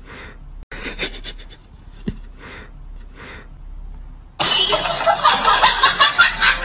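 A few soft breathy puffs, then about four seconds in a loud, harsh cat hiss lasting a couple of seconds.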